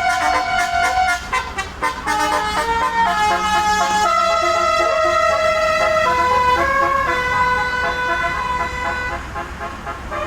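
Bus basuri telolet horn playing a melody, held notes stepping up and down in pitch, sometimes two or more sounding together, over the low steady rumble of the idling bus engine.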